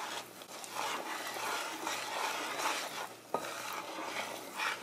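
Wooden spatula stirring a garlic butter sauce with spices in a pan, the hot butter sizzling under the strokes; a single knock about three seconds in.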